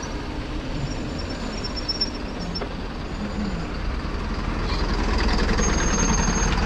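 Steady rumbling wind and rolling noise from a mountain-bike ride, growing louder near the end.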